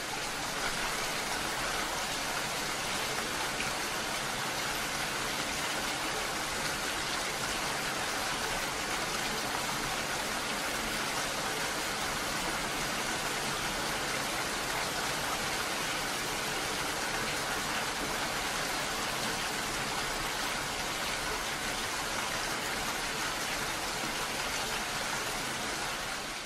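Heavy rain falling steadily: an even, unbroken hiss of rain, fading in at the start and out at the end.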